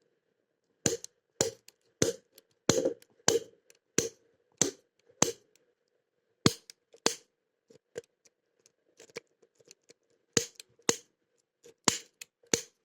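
Snap rake being flicked in a long-shackle pin-tumbler padlock: a series of sharp metallic snaps, about two a second, with a short pause in the middle and a quicker cluster near the end. Each snap bounces the standard pins toward the shear line.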